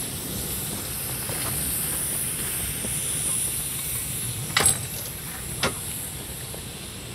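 Steady steam hiss from the 1924 Wee Georgie Wood narrow-gauge steam locomotive as it draws away, fading slightly, with two sharp clicks about four and a half and five and a half seconds in.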